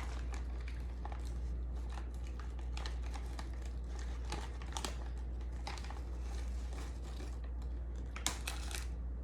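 Crispy seaweed snack crackling and crinkling in irregular sharp clicks, with a dense cluster near the end, over a steady low hum.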